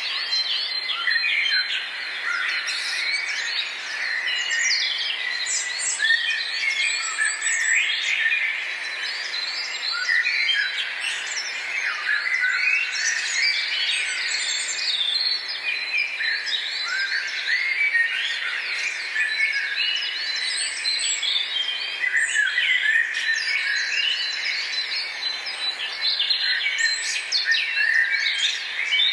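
Many birds singing and chirping at once: a dense, continuous chorus of overlapping short calls.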